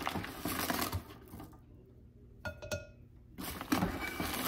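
Granulated sugar poured from a small measuring scoop into a glass mixing bowl: two grainy hisses, one at the start and one near the end.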